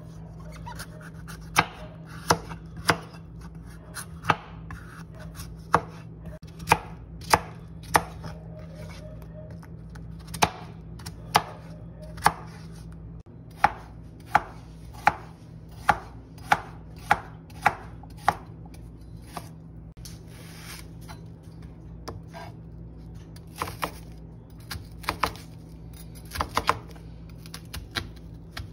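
Santoku knife chopping through pieces of pumpkin and then carrot, each stroke ending in a sharp knock on a plastic cutting board, mostly half a second to a second apart, with a few quieter gaps. A steady low hum runs underneath.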